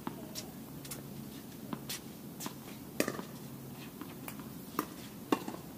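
Tennis balls being struck and bouncing on a court: irregular sharp pops and knocks, the loudest about three seconds in and two more close together near the end, over a steady low background noise.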